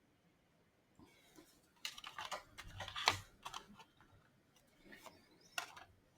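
Paper trading cards handled and slid against one another: bursts of light clicks and rustles, with a pause between two bouts.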